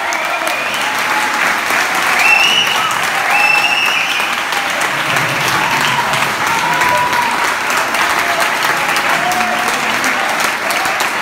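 Audience applauding and cheering at the end of a song, with scattered shouts over steady clapping.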